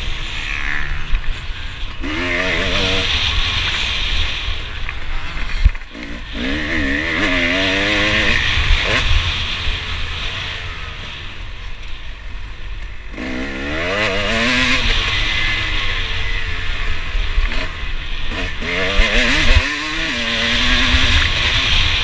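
KTM 250SX single-cylinder two-stroke motocross engine heard from on board, revving hard and rising in pitch four times as the rider accelerates, dropping off between, with heavy wind rush on the microphone. A few sharp thumps come from the bike hitting bumps, the clearest about six seconds in.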